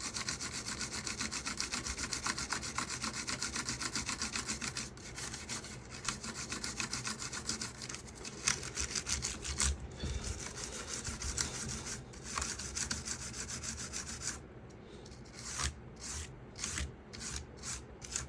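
Toothbrush bristles scrubbing fast back and forth over a mechanical keyboard's switch plate between the switches. Near the end the rapid scrubbing gives way to slower, separate brush strokes.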